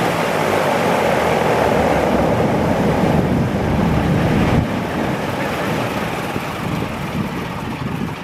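Ilyushin Il-14T's two Shvetsov ASh-82T radial piston engines running on the ground, then shut down about halfway through. The sound falls away as the propellers slow and wind down.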